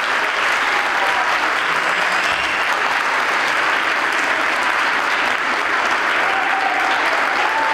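Audience applauding steadily, a dense, even clapping with a few faint voices over it.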